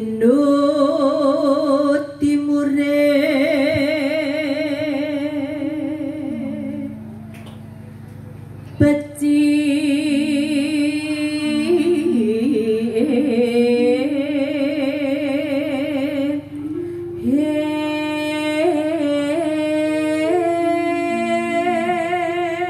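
A woman singing into a microphone, holding long notes with a wide vibrato, over sustained keyboard chords. The singing breaks off briefly about seven seconds in, then resumes.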